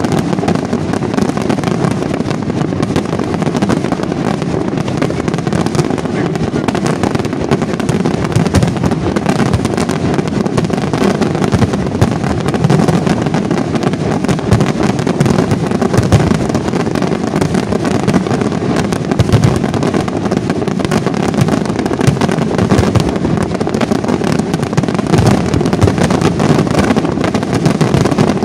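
Dense aerial fireworks barrage: many shell bursts and crackles following so closely that they merge into a continuous rumble, with sharp bangs standing out.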